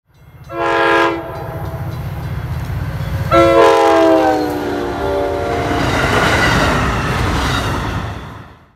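Diesel-hauled passenger train passing: a short blast of a multi-chime locomotive horn, then a longer blast whose pitch drops as the locomotive goes by. Under it is the steady low rumble of the diesel engine and wheels on rail, which fades out near the end.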